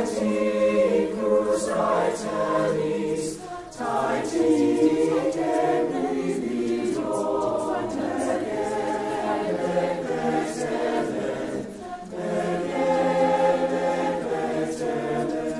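Mixed-voice a cappella choir singing unaccompanied in sustained chords, with short breaks between phrases at about four seconds and again near twelve seconds.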